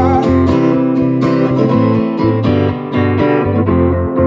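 Background music: a song's instrumental stretch of strummed guitar over a steady bass beat, with no singing.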